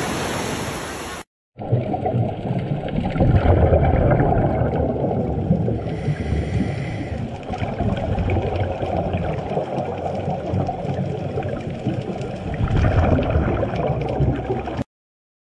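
Waves breaking at the shore for about a second, then, after a brief cut, the muffled underwater rumble and bubbling of a scuba diver breathing through a regulator, swelling twice with exhaled bubbles. It cuts off suddenly near the end.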